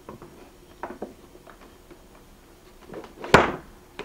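Light wooden taps and clicks as a plywood speaker stand and speaker are handled, then one louder knock about three seconds in as the Mackie FreePlay Live speaker cabinet is set down onto the stand.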